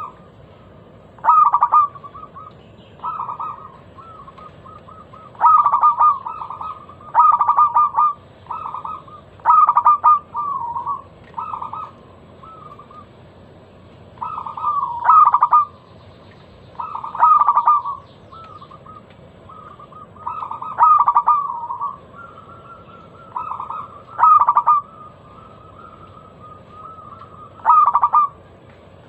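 Zebra dove (perkutut) cooing: about a dozen phrases of rapid, clipped coo notes, each lasting around a second, with short pauses between them.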